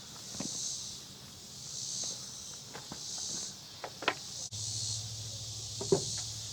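Insects buzzing in the background, in waves that swell and fade about once a second, with a few short knocks and taps, the sharpest about four and six seconds in.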